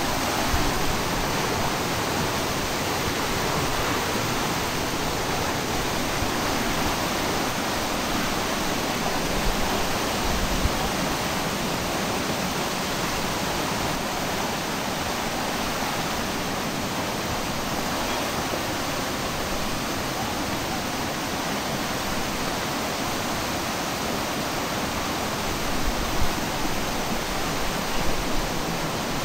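Flood-swollen river of muddy brown water rushing past in a steady, unbroken rush of noise: the river in spate after heavy rain.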